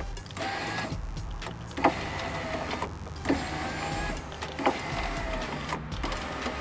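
Power-window motor in an Audi S4 door running the glass up and down on a newly fitted window regulator, as a function test: a steady motor whine that stops and restarts several times, with three short knocks along the way.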